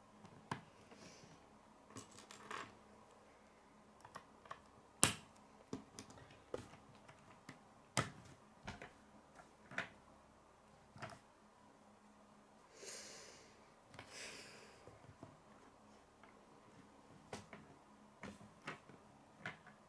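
K'nex plastic rods and connectors being snapped together and handled on a wooden tabletop: scattered faint clicks, with a sharper snap about five seconds in and another around eight seconds. Two short rustles come a little past the middle.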